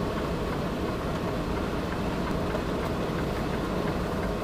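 Freightliner semi tractor's diesel engine idling with a steady rumble.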